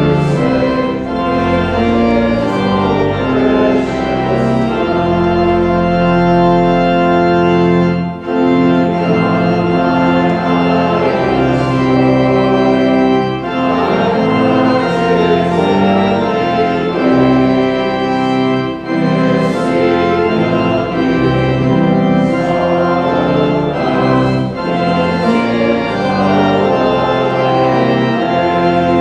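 Church organ playing a slow piece of held chords that change every second or two.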